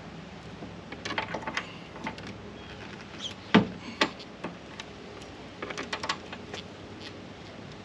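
Clicks and knocks from a loader cab's windshield frame and its bolts being handled while the windshield is fitted, with one loud thump about three and a half seconds in and a second knock just after.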